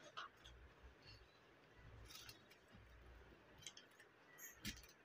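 Faint, scattered soft clicks and crackles of someone eating medu vada: chewing and mouth sounds, with a few slightly louder ticks about two seconds in and near the end.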